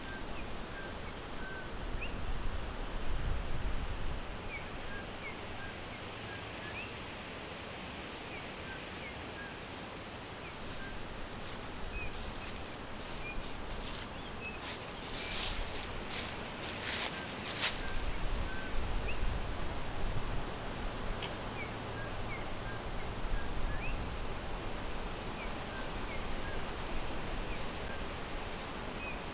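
Small forest birds chirping: short, high chirps repeated on and off throughout, over a steady background hiss, with a few brief crackles about halfway through.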